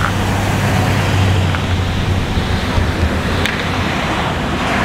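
Road traffic: cars and trucks passing close by on a multi-lane street, a steady rush of tyre and engine noise with a low engine drone, strongest in the first half.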